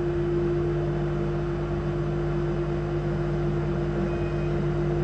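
Steady machine hum from the idling CNC router setup, a constant mid-pitched tone over a lower drone that holds level throughout.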